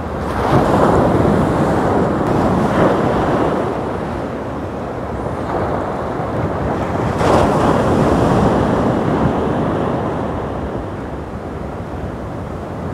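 Sea waves breaking and washing up the shore, swelling three times, with wind buffeting the microphone.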